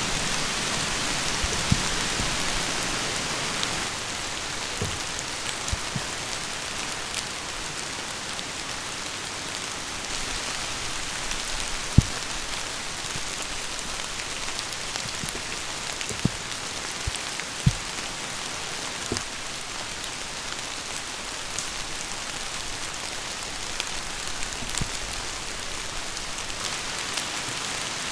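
Heavy rain pouring steadily, an even hiss, with scattered sharp ticks of single drops striking close by.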